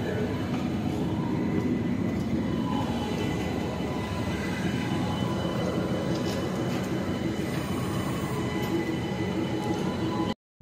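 Indian Railways train heard from an open carriage doorway: a steady rumble with faint, steady whining tones over it. The sound cuts off suddenly near the end.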